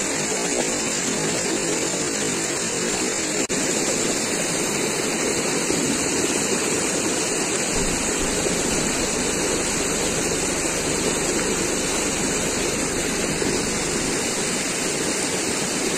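Muddy floodwater rushing over a rock bed, a steady unbroken rush, with a low rumble added in the middle of the stretch.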